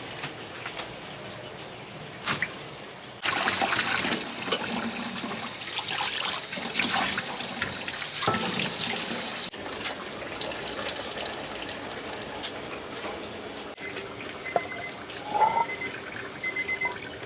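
Water running hard from a kitchen tap for several seconds, with clatter of utensils or dishes through it. Near the end a short electronic beep starts repeating.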